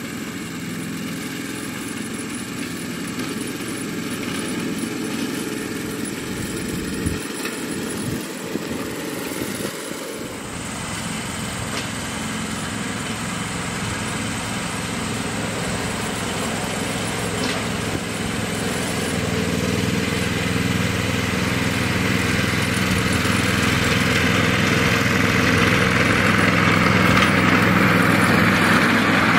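Small engine of a ride-on miniature railway locomotive running steadily, growing gradually louder as the train draws closer.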